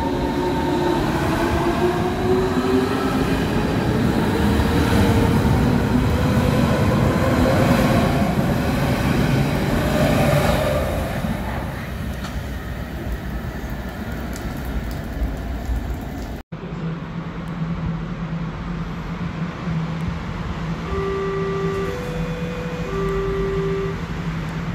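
Berlin S-Bahn electric train pulling along the platform, its traction motors whining up in pitch as it accelerates, the rumble dying away after about ten seconds. Near the end, over the steady low hum of a standing train, a three-note chime sounds.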